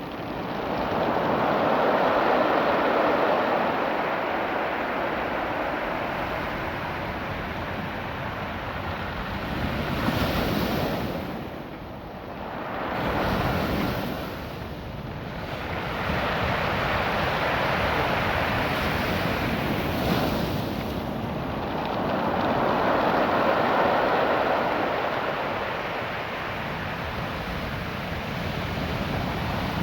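Ocean surf washing over a beach of small rounded stones, each wave surging up and falling away every several seconds, the stones adding a distinct rushing rattle under the water. Wind buffets the microphone.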